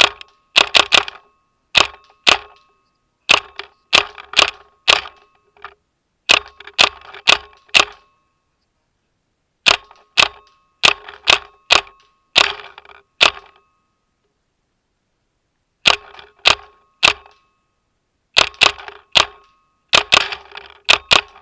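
Planet Eclipse LV1 paintball marker firing in quick strings of two to five shots, with short pauses between strings and a longer pause about two-thirds of the way through. Each string is heard close up from the feedneck under the R7 Replay loader, with a steady ringing tone under the shots.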